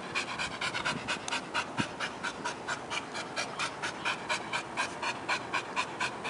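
Pit bull–type dog panting rapidly with its mouth open and tongue out, an even rhythm of about six breaths a second.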